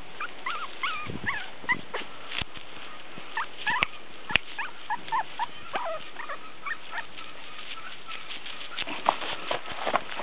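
Morkie puppy giving many short, high-pitched yips and whimpers that bend in pitch, mixed with scattered crackles of dry leaves as it plays.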